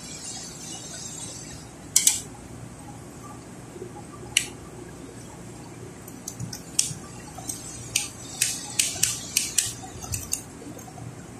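Sharp clicks and taps of a Lotus electric drill's plastic housing and the screwdriver as the drill is screwed back together and handled. There is a single loud click about two seconds in and another a couple of seconds later, then a quick run of a dozen or so clicks over the last five seconds. The drill's motor does not run.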